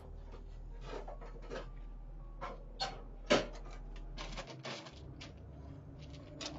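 Faint scattered clicks and light knocks, the loudest about three seconds in, over a low steady hum, picked up by a doorbell camera's microphone.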